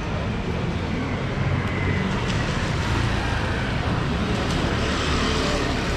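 Street traffic with a car driving past, a steady engine-and-tyre rumble that swells briefly.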